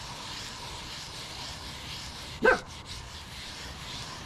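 A stiff brass brush scrubbing a rusty radial drill press table through an acetone and transmission-fluid slurry, a steady scratchy rubbing. About two and a half seconds in, one short, loud yelp cuts across it.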